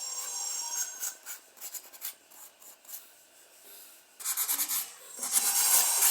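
Uneven scraping and rubbing strokes on carved wood, faint and broken at first and much louder from about four seconds in.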